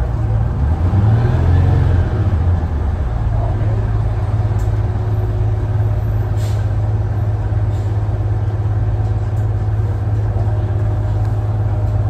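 Cabin sound of a 1975 AM General bus under way: a low motor drone that wavers and glides in pitch for the first few seconds, then settles into a steady low hum. A short hiss comes about six seconds in.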